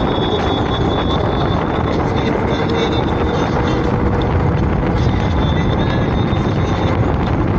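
Wind rushing over the microphone and the road noise of a vehicle in motion, steady throughout, with a thin high whine that comes and goes.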